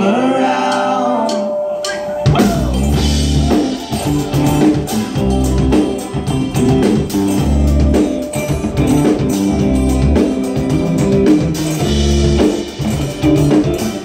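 Live band music: a held sung note with string accompaniment ends about two seconds in. Then drums, upright bass and guitars come in together for an instrumental passage with a steady kick-drum beat.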